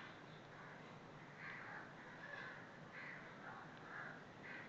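Faint background bird calls: a string of short, harsh calls, roughly one every half second to second, over low room hiss.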